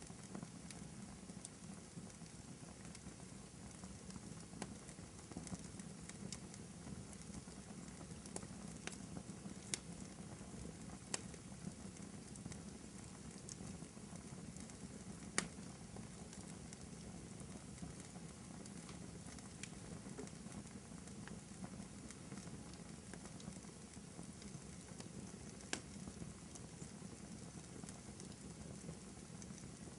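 Wood fire in a fireplace crackling: scattered sharp pops and snaps over a faint steady low rumble, the loudest pop about halfway through.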